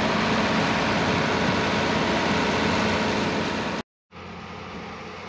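Hay tub grinder running with its tractor, a loud steady grinding rush over engine drone. It cuts off suddenly about four seconds in, and after a moment of silence a tractor engine runs more quietly.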